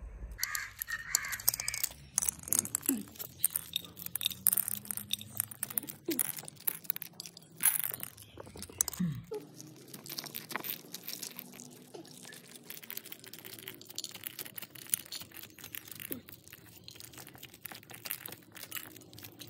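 Dried maize cobs being handled and shelled by hand: a dense, irregular crackling and clicking as one cob is rubbed against another and the hard kernels break loose and fall into a clay bowl.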